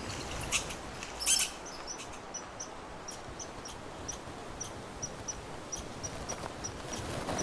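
A small animal's short, high chirp repeated steadily, about three times a second, over quiet woodland. A brief rustling snap comes about a second in.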